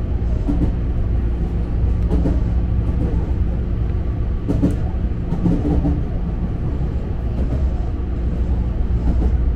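Tobu Urban Park Line electric commuter train running at speed, heard from inside the front car: a steady low rumble of wheels on rail with a steady hum, and a few sharper clicks from the wheels about two and four and a half seconds in.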